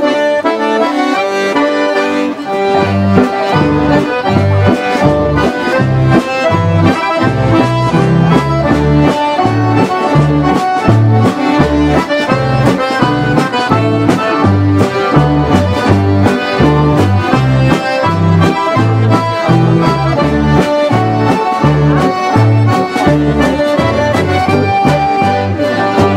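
A massed ensemble of hundreds of accordions playing a traditional dance tune in unison, loud and steady, with bass notes pulsing evenly on each beat.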